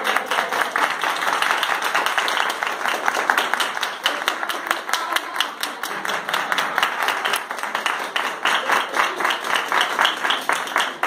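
A small group applauding: many hands clapping quickly and continuously.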